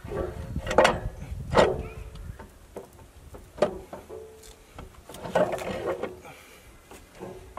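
Several sharp metallic knocks and clinks, each with a brief ring, the loudest two about a second in, as metal parts are handled around the turbo mount in a diesel truck's engine bay.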